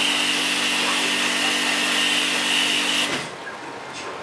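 A high-pressure water pump runs with a steady motor hum while its jet hisses against the fan coil of a split air conditioner inside a plastic cleaning bag. It cuts off suddenly about three seconds in, leaving only a few light clicks.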